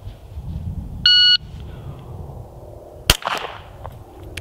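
Shot timer beeps once, about a second in. About two seconds later comes a single shot from a 9mm Smith & Wesson M&P 2.0 compact pistol, a miss on the steel target with no ring from the plate. Low wind rumble on the microphone underneath.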